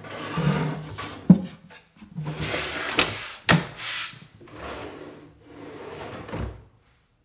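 Plywood drawer on Blum Tandem Plus Blumotion undermount slides being pulled open and pushed shut several times. Each stroke is a sliding rush, with sharp knocks about a second in and around three and a half seconds, and a low thump near the end.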